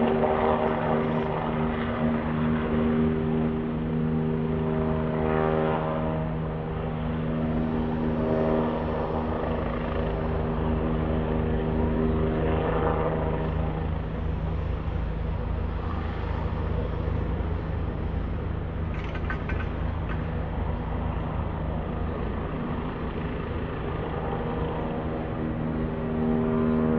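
Vehicle noise while driving: a steady low rumble with a droning hum. The hum fades about halfway through and comes back near the end.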